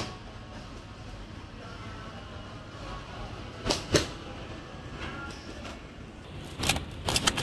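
A rigid plastic produce pack being handled: two sharp clicks about halfway through, then a cluster of clicks and knocks near the end as it goes into a plastic shopping cart, over a steady background hum.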